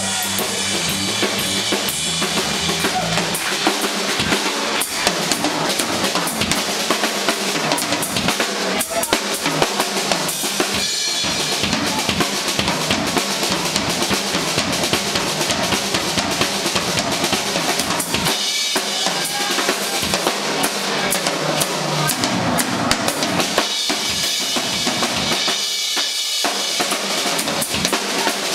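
Drum solo on a Yamaha drum kit: a dense, unbroken run of snare, tom and bass drum strokes under a constant wash of cymbals.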